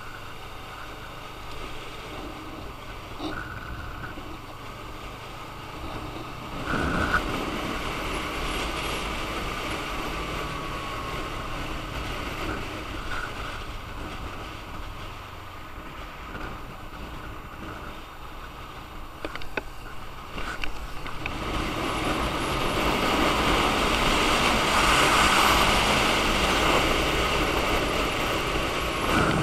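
Motorcycle on the move: its engine running under wind rush on the mounted camera, which swells twice as the bike speeds up and is loudest about two-thirds of the way through.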